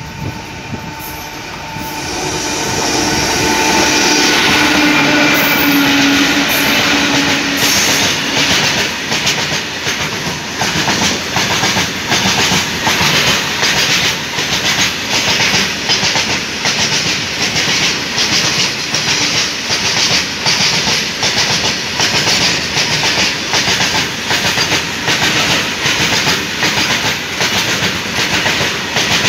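Pair of WAG-7 electric locomotives hauling a freight train, growing louder as they approach over the first few seconds, then a long rake of covered goods wagons rolling past close by with a steady rhythmic clickety-clack from the wagon wheels.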